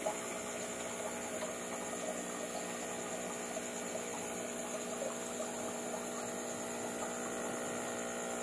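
Steady electric hum of aquarium pumps running, a few even tones that hold unchanged throughout.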